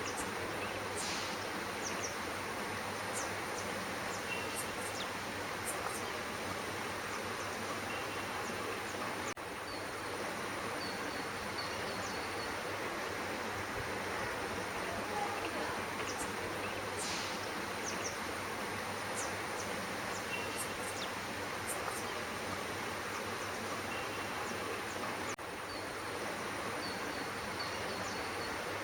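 Steady outdoor background hiss with a constant high thin whine, dotted with faint short chirps and brief whistled notes from small birds. The same sequence of chirps repeats about every sixteen seconds.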